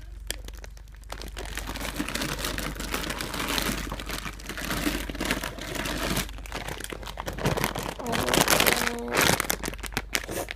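Crinkling and rustling as squishy toys are handled, getting louder and busier in the last few seconds.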